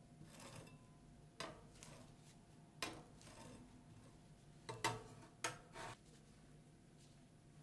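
Metal spatula scraping and tapping on a stainless steel rolled-ice-cream cold pan while spreading and smoothing frozen ice cream base: short scrapes with a handful of sharp metal taps about a second or so apart, stopping about six seconds in.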